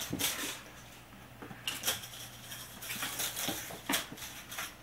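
Scattered light clicks and clatters on a wooden floor: a small hard part skittering and being batted about by a cat playing fetch, with a few louder knocks a couple of seconds in and near the end.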